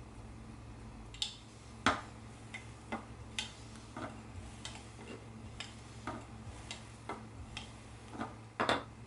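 Hands and utensils handling bread dough on a work surface while shaping rolls: light, irregular taps and clicks, about fifteen, the loudest about two seconds in and near the end, over a steady low hum.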